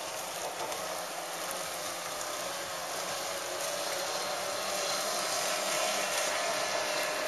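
25 hp two-stroke Mercury outboard running at speed on a tunnel-hull inflatable boat: a steady hissing drone with a faint whine, getting a little louder about five seconds in.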